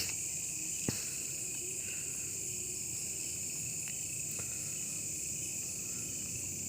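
Crickets and other night insects trilling in a steady, high chorus, with one faint click about a second in.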